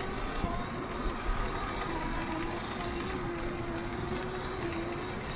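Electric motor and gears of an RC off-road car whining steadily, the pitch dipping slightly about two seconds in as the throttle changes, over a low rough rumble.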